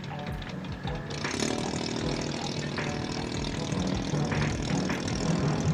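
Engine of an enclosed lifeboat running at a low rumble, then picking up to a louder, steady run with a hiss about a second in.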